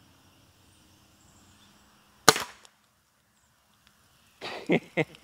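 A Gamo Big Cat IGT gas-piston air rifle fired once, about two seconds in: a single sharp crack, with the pellet striking and knocking over an aluminium drink can close behind it. Near the end, a quick run of short clicks and knocks.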